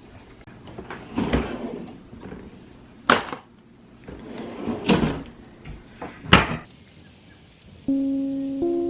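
Four sharp household knocks and clunks, spaced a second or two apart. Chiming notes of music start near the end.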